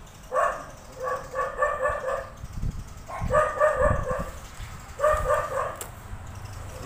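A dog barking in runs of quick, high-pitched barks, four bouts in all, with a few dull low thuds in between.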